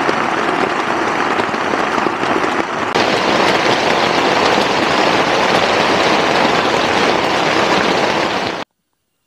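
Heavy rain pouring down in a dense, steady hiss. It grows a little louder about three seconds in and cuts off suddenly near the end.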